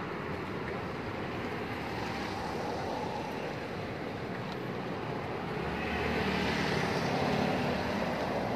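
Steady street traffic noise, with a nearby vehicle engine growing louder from about six seconds in.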